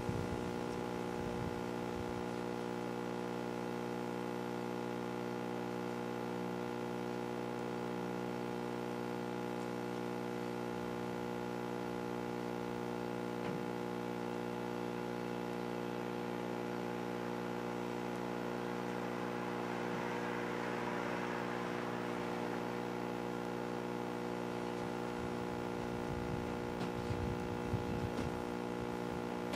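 A steady hum of several held tones, with a brief swell of hiss about twenty seconds in and a few low rumbling bumps near the end.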